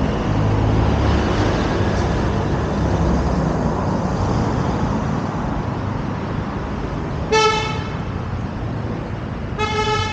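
Road traffic running steadily, heaviest in the first few seconds, with two short vehicle horn toots, one about seven seconds in and a slightly longer one near the end.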